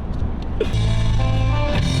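Rock music with electric guitar starts about half a second in, over a low rumble.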